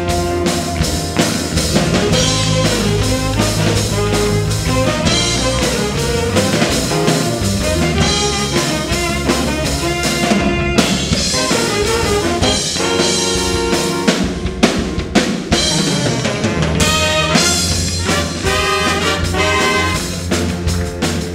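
Youth big band playing jazz: brass section with trumpets and trombones over a drum kit.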